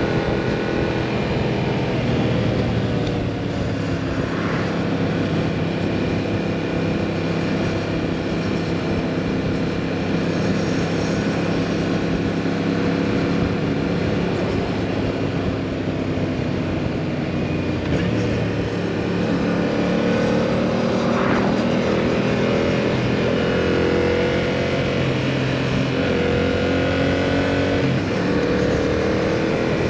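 Yamaha MT-07's parallel-twin engine breathing through a full exhaust, ridden on the road: the note rises and falls with throttle, with several rising pulls through the gears in the second half.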